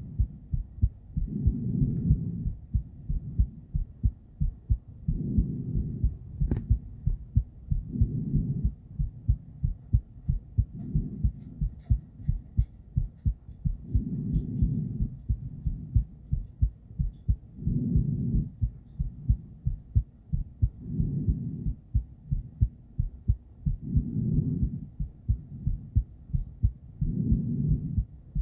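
A woman's heartbeat amplified through a handheld ultrasonic Doppler device: a fast, steady train of low, muffled beats. A louder whooshing swell comes about every three seconds, in time with her breathing, and there is one sharp click about six and a half seconds in.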